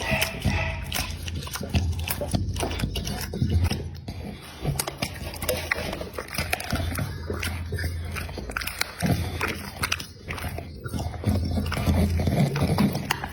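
An American Pocket Bully dog biting and chewing food, with many short sharp clicks of jaws and teeth.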